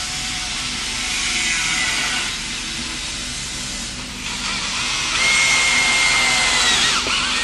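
Power drill with a 5/16-inch bit boring holes in plastic body panels: a steady high whine that gets louder about five seconds in, then winds down near the end.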